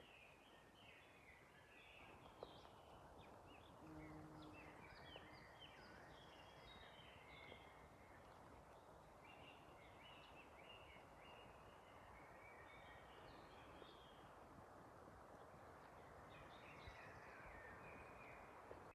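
Small songbirds chirping and twittering faintly, many short calls overlapping, over a steady background hiss.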